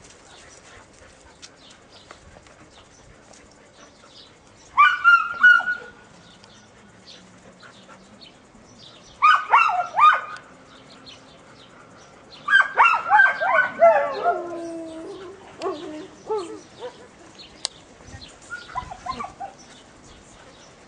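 Dogs barking excitedly in three quick runs of high yaps, the last one trailing off into falling yelps, then a few softer barks near the end.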